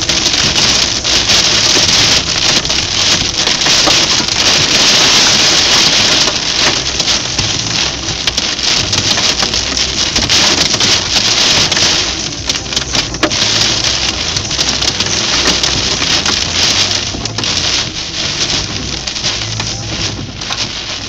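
Heavy rain drumming on a car's roof and windscreen, heard from inside the car: a loud, dense hiss of pelting drops that eases somewhat about halfway through and again near the end.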